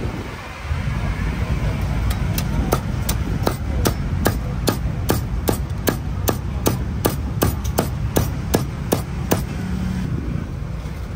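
Repeated sharp strikes of a kitchen utensil in food preparation, about three a second, starting about two seconds in and stopping near the end, over a steady low rumble.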